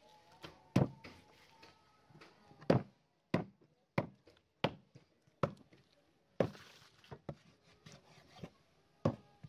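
A knife chopping on a wooden board: about ten sharp knocks, irregular at first, then coming roughly every second or less.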